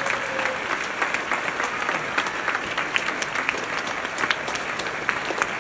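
Opera-house audience applauding at a curtain call: a dense, steady patter of clapping with a few sharper, louder claps close by.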